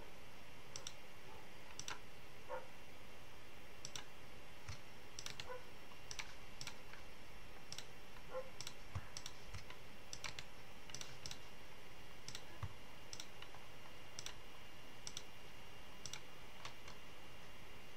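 Computer mouse buttons clicking at irregular intervals, a couple of dozen short sharp clicks, over a steady faint background hiss.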